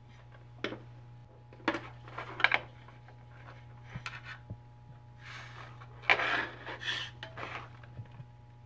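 A digital readout (DRO) read head being popped off its aluminium scale: a few sharp clicks and knocks, then several seconds of scraping and rubbing of plastic and metal as the scale bars are handled.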